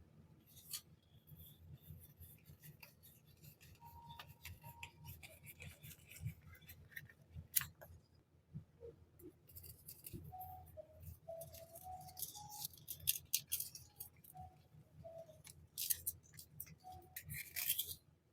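Hands unboxing and handling packaged items: plastic packaging crinkling in short bursts, with scattered light clicks and taps, the loudest a sharp tap about seven and a half seconds in.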